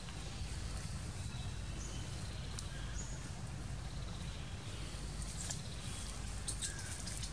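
Outdoor forest ambience: a steady low rumble with a few faint, short high chirps, and some light clicks and rustles in the second half.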